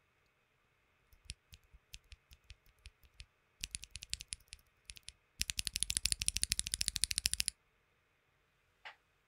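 A stock, unlubed Kiwi tactile mechanical keyboard switch with a keycap on it, pressed and released by hand. First come spaced single clicks, then quicker presses, then about two seconds of rapid presses in a fast, loud clatter, and one last softer sound near the end.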